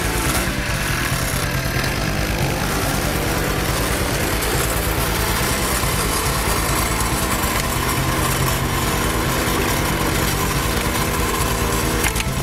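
Kioritz AZ850 Spider Mower slope mower's small petrol engine running steadily.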